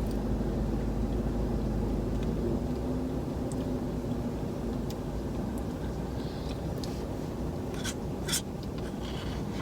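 Steady low hum inside a car's cabin, with a few faint clicks near the end.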